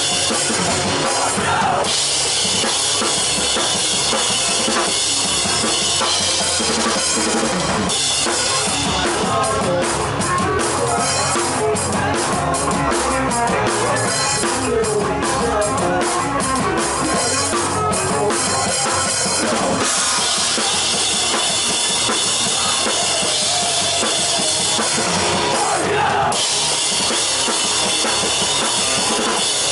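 Drum kit played live with bass drum, snare and cymbals. The cymbals ring in a continuous wash at first and again in the last third, while in the middle stretch the hits come through separately and crisply.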